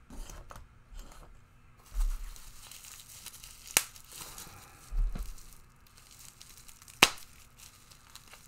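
Packaging being handled: tearing and crinkling of wrapping, with a few sharp clicks and dull knocks of objects set on a table.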